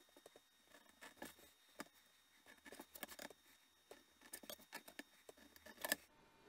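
Faint, irregular scratching and clicking of a craft knife scoring straight lines into leather along a steel ruler.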